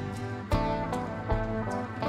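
Background music: plucked and strummed guitar with a steady beat.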